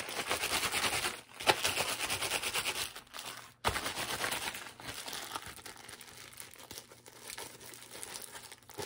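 Plastic zip-lock bag filled with shaving cream crinkling as it is squeezed and kneaded by hand. Loudest over the first three seconds, it stops briefly about three and a half seconds in, then goes on more quietly.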